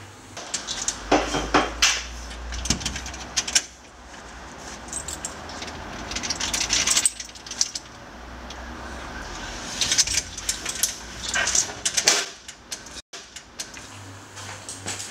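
Scattered knocks, rustles and small metallic clinks of a person putting on shoes and moving about. A steady low hum runs under the first half.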